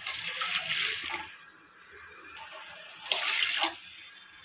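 Water poured from a cup into jaggery syrup in a stainless steel kadai, in two pours: one about a second long at the start and a shorter one about three seconds in.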